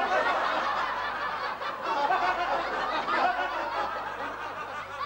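Studio audience laughter (a sitcom laugh track), breaking out suddenly and carrying on, easing a little over the last second or so.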